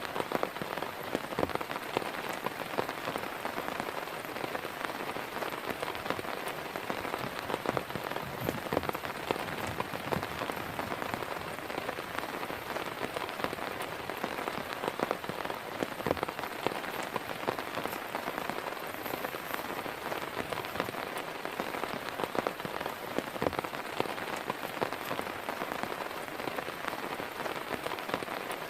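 Heavy rain falling steadily, with many separate drops hitting a surface close by throughout.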